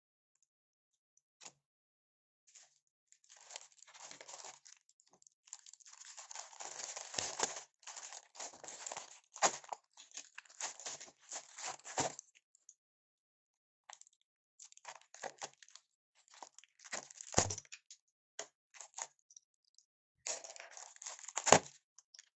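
Crinkling and rustling of a clear air-cushion plastic packaging bag being handled and opened to take out a replacement phone screen, in irregular bursts, with a couple of sharper snaps in the second half.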